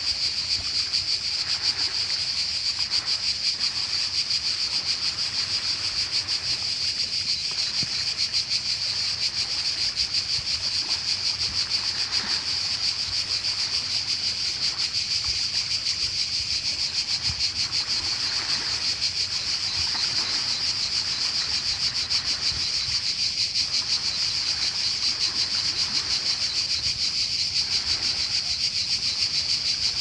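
Cicadas singing in one steady, unbroken high buzz, with small waves washing softly onto a pebble shore every second or two.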